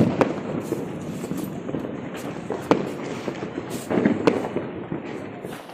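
Firecrackers going off: several sharp bangs spread across a few seconds, with fainter crackling and popping between them.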